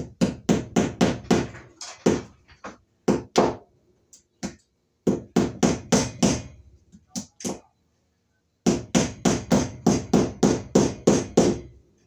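Hammer driving a cable staple over electrical cable into a wooden ceiling board. Quick blows come in three bursts of about four a second, with a few single taps between; the last burst is the longest.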